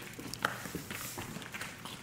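Small dogs' paws and claws scurrying and skittering across a hardwood floor and foam mats as they chase each other in play, with one short sharp sound about half a second in.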